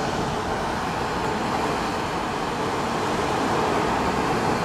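Hurricane-force wind blowing steadily through trees, a loud, even rush with a low rumble underneath.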